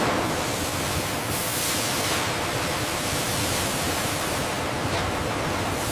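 Steady, even hiss, with a soft whoosh about a second and a half in and another near the end.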